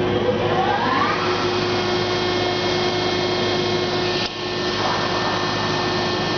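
Accurpress hydraulic CNC press brake running: a steady machine hum and hiss with several held tones, and a whine that rises in pitch over the first second and then holds steady. The sound dips briefly about four seconds in.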